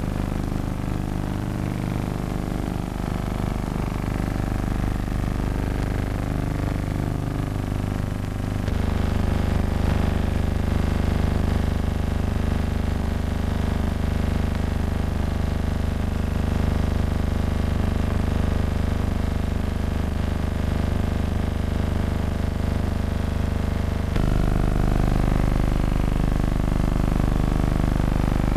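Background music: a sustained low synthesizer drone of held chords, which shifts abruptly to a new, louder chord about a third of the way in and again near the end.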